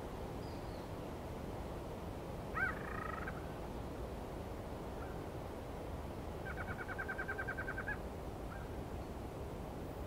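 Nighttime tropical jungle ambience: a steady hiss of wind, with a short two-note animal call about two and a half seconds in. About six and a half seconds in comes a rapid, even trill of about a dozen notes lasting about a second and a half, then a brief chirp.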